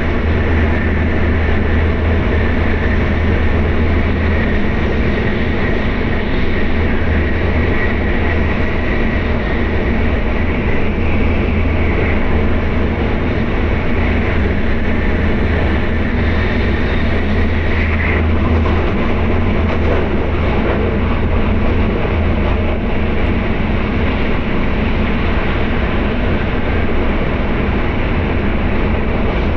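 Tokaido Shinkansen bullet train running steadily at speed, heard from inside the car: a constant low rumble with a faint high whine over it.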